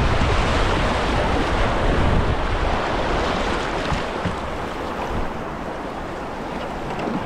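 Whitewater rapids rushing steadily around a kayak, with a low rumble of wind on the microphone that eases about halfway through.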